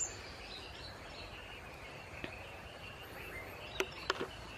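Outdoor ambience of a steady, high insect drone, with two sharp clicks a little under four seconds in.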